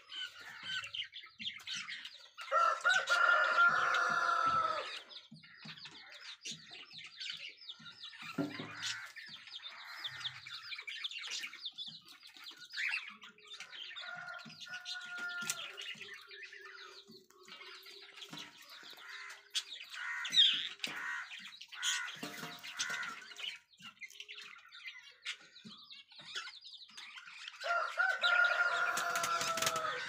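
Budgerigar chicks in a clay-pot nest calling with rapid raspy chirps, with two louder drawn-out calls, one about three seconds in and one near the end.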